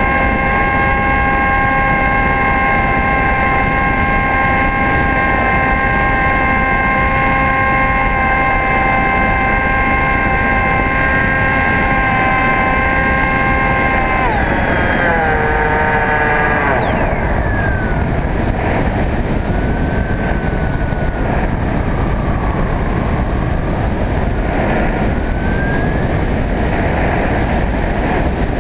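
Electric motor and propeller of a HobbyKing Bixler RC plane whining steadily, heard from a camera on the plane's nose over a constant rush of wind. About halfway through the whine drops sharply in pitch as the motor is throttled back, leaving mostly wind noise with a faint whine that wavers in pitch.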